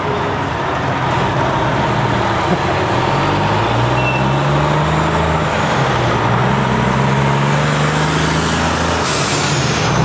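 Diesel semi-truck engines pulling shipping-container trailers away from a stop, loud and rumbling. The engine note climbs as a truck accelerates through the gears, about three seconds in and again near the end as a truck passes close by.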